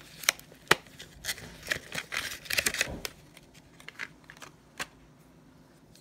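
Long-nose pliers and their card packaging being handled: a series of sharp clicks, with a stretch of rustling about two to three seconds in.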